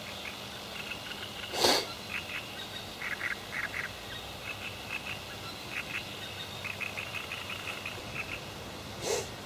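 Animal calls at the water's edge: irregular runs of short, quick, high calls, with two louder, sharper calls about one and a half seconds in and near the end.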